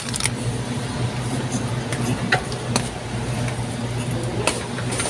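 Plastic shopping cart being pushed: a steady low rumble, with scattered light clicks and rattles from the cart.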